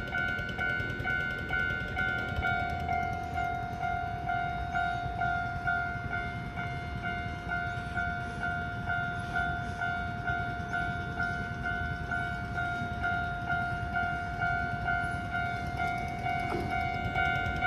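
Japanese railway level crossing alarm ringing its steady two-tone ding about twice a second, over the low rumble of a passing train.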